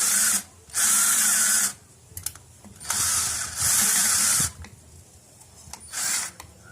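Power drill running in short bursts, about five, each under a second long, with short pauses between.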